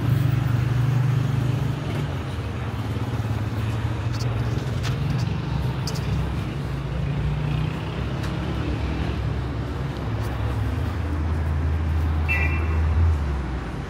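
Car engines running in street traffic: a steady low engine hum, lower in the last few seconds, with a short high beep near the end.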